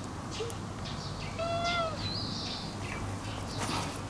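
Domestic cat meowing once, a short meow that rises and falls, about a second and a half in.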